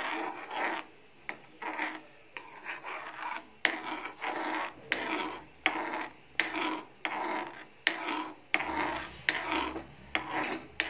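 A metal spoon scraping round a small metal kadhai as it stirs thin besan-and-milk porridge. The strokes come in an even rhythm, about three every two seconds, with a sharp click of spoon on pan now and then.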